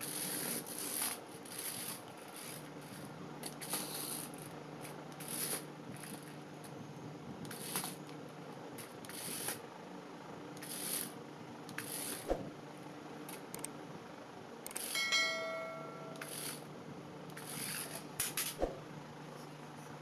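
Battery toy RC stunt car with roller wheels driven in short spurts, its small electric motors whirring in repeated bursts, with a low hum that comes and goes and a few sharp knocks. A brief electronic tone sounds about fifteen seconds in.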